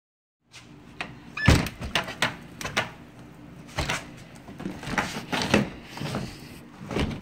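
Metal storm door being unlatched and shoved open against deep snow. A series of sharp knocks, clicks and rattles comes from the latch and frame, with a brief squeak about a second and a half in.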